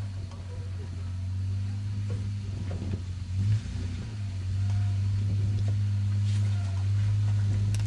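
Toyota Land Cruiser FZJ80's 4.5-litre straight-six engine running at low revs as the truck crawls over rocks: a steady low drone that grows louder in the second half, with a few faint clicks.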